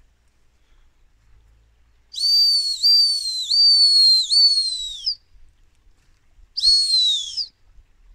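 Handler's dog whistle: a long blast of about three seconds broken into five pulses that ends by sliding down in pitch, then a shorter blast near the end that also falls away.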